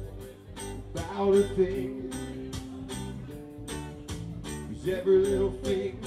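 Live band playing an instrumental passage: electric and acoustic guitars over a steady beat.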